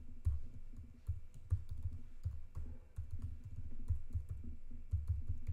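Typing on a computer keyboard: an irregular run of key clicks as a passphrase is entered.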